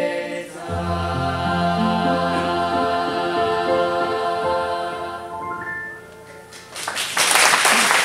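Mixed student chamber choir singing and holding the final chord of a song, which dies away about six seconds in. Audience applause breaks out about a second later and is louder than the singing.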